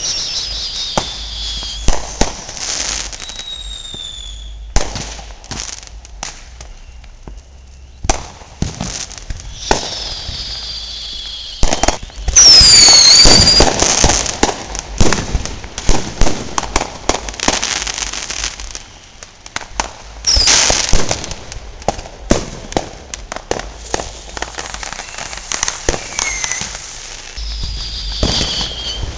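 Consumer fireworks going off: repeated bangs, pops and crackles of firecrackers and aerial shells, with several whistles falling in pitch. About twelve seconds in comes a loud, dense run of bursts.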